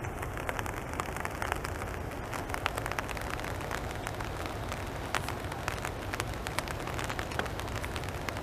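Light rain pattering on pond water: a steady hiss full of irregular sharp ticks, over a low rumble. Mixed in are the clicks of a young North American beaver chewing on a twig held in its front paws.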